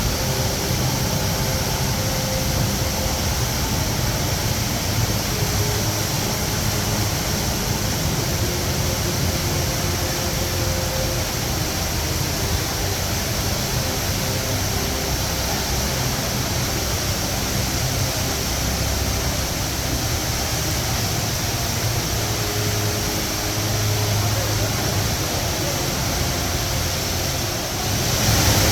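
Steady rushing roar of the Rain Vortex, a large indoor waterfall, with a low rumble under it.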